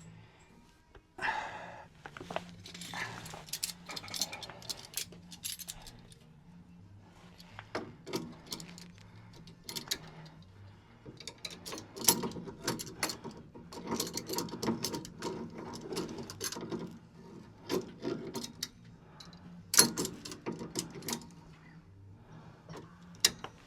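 Irregular metallic clinks, taps and scrapes of hand tools working on the steering track rod as the front-wheel toe-in is adjusted.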